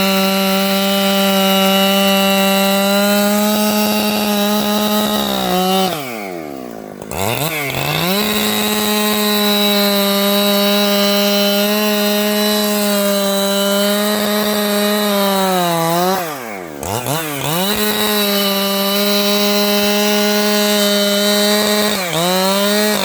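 585XP chainsaw running at full throttle while ripping timber lengthwise, the engine held at a high, steady pitch. Twice it drops right down and revs back up, about six and sixteen seconds in, and there is a brief dip near the end.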